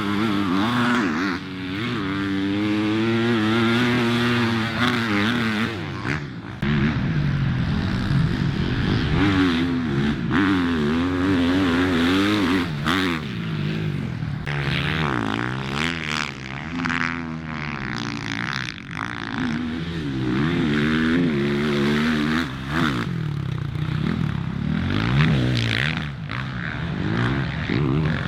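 Off-road racing engines revving hard as machines pass, the pitch climbing and dropping again and again, sometimes more than one engine at once.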